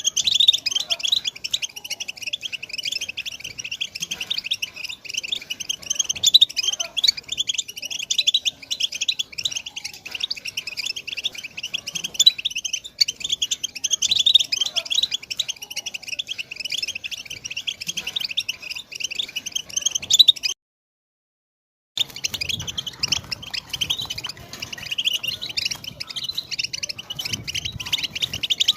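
European goldfinch singing its twittering song: a continuous rapid chatter of high chirps and trills. It breaks off for about a second and a half of silence about two-thirds of the way through, then resumes.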